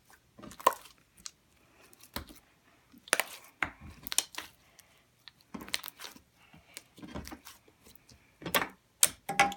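Borax slime being worked by hand: irregular sticky clicks and crackles.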